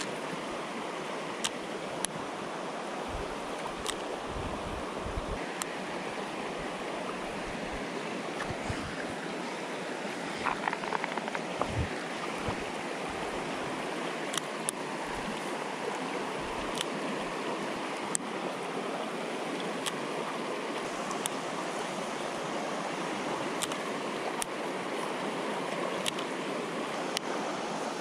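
Shallow river riffle rushing steadily over rock ledges, with a few faint scattered clicks.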